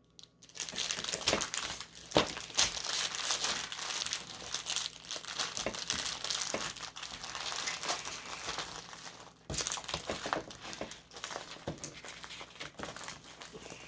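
Plastic packaging of a diamond painting kit crinkling and rustling as it is handled, with a short pause about nine and a half seconds in.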